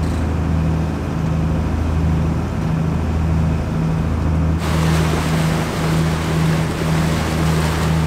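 A boat's engine droning steadily underway, under the rush of wind and water. The wind and water noise grows clearly louder a little past halfway.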